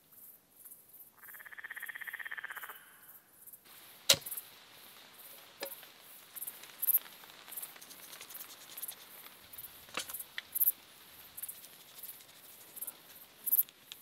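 A short pulsed trill of an animal call about a second in, then steady high insect chirping, typical of crickets, broken by a few sharp knocks. The loudest knock comes just after 4 s.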